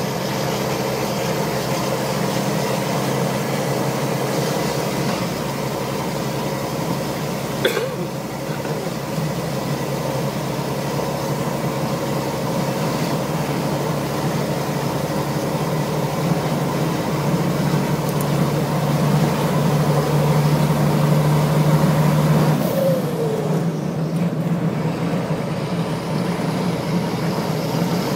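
Japanese truck's turbocharged diesel engine running, its turbocharger whistling ('singing') over a steady engine hum. It grows louder for a few seconds past the middle, with a single sharp click about a third of the way in and a short falling squeal near the end.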